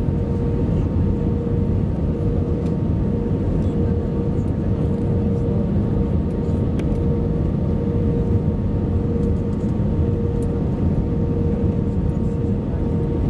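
Steady cabin noise of an Airbus A320-214 on landing, heard from a window seat over the wing: a deep, even rumble with a held tone above it that pulses on and off, and a fainter higher tone.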